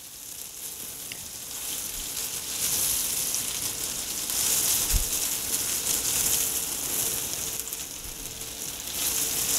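Breaded veal cutlets frying in butter and olive oil in a skillet: a steady sizzle that grows louder a couple of seconds in.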